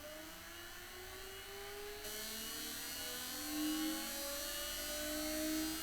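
Seagate ST-4096 80 MB hard drive spinning up after power-on: the spindle motor's whine rises steadily in pitch, and about two seconds in a hiss of air and platter noise joins it. The owner judges the startup to sound very good.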